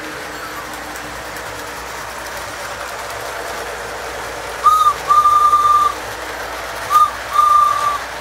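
Three-rail O-gauge model train running along its track with a steady rolling clatter. It sounds its signal twice, each time a short blast then a longer one, at one steady pitch.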